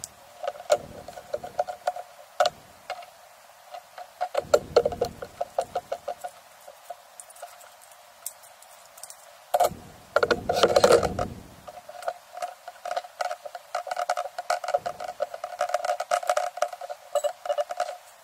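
A potato being sliced on a plastic handheld mandoline: runs of quick scraping strokes and plastic clacks, with a couple of louder clatters as the slicer is handled.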